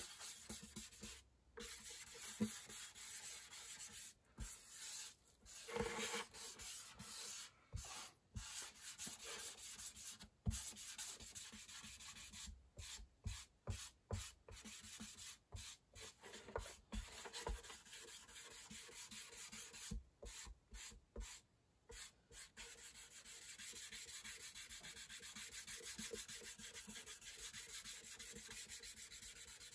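Dye pad rubbing across the wooden top of an acoustic guitar: a faint rubbing hiss in short strokes that keep breaking off and starting again.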